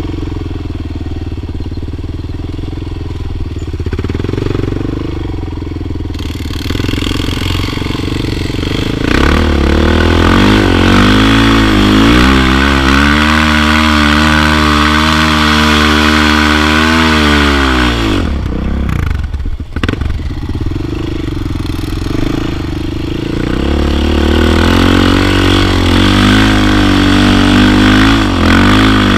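Suzuki LT-Z sport quad's single-cylinder four-stroke engine running at part throttle, then revving up and holding high revs under load on a steep sand hill climb. Around two-thirds of the way through it drops off briefly, then pulls up to high revs again.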